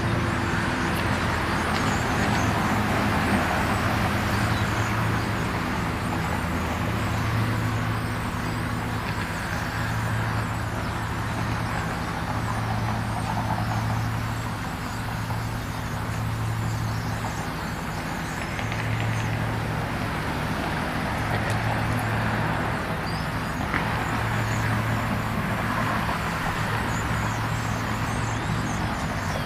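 Steady road traffic noise from passing cars, with the faint chattering of a flock of European starlings over it.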